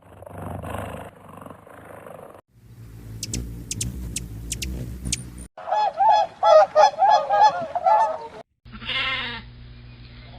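Several short animal-sound clips cut one after another. The loudest, past the middle, is a rapid run of about seven loud repeated calls, followed by a shorter call near the end.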